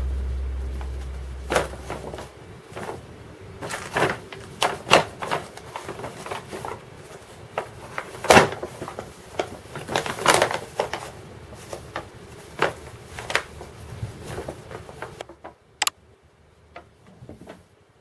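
Paper gift bag crinkling and rustling in irregular crackles as two kittens pounce on it and tumble in and around it. The rustling dies down near the end.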